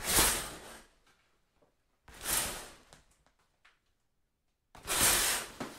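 Curtain being drawn: three quick swishes of fabric about two seconds apart, the first two followed by a few light clicks.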